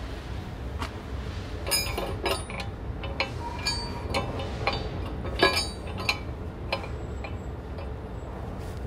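Irregular metallic clinks and knocks as the painted metal mounting plate of a Flexco HV2 precleaner is worked onto the cleaner's pole, the loudest knock about five and a half seconds in, over a steady low hum.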